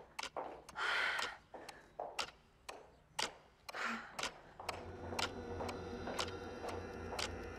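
Footsteps in heeled shoes walking briskly on a hard floor, about two steps a second, with two short breaths along the way. About five seconds in, a low drone and a ticking suspense underscore come in.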